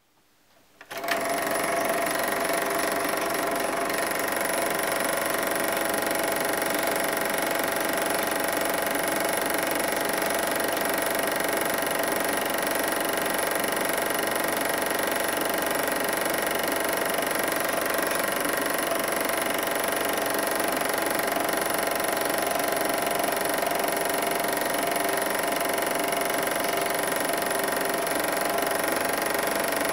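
Super 8 film projector running, a steady mechanical whirr and clatter of the motor and film transport that starts about a second in.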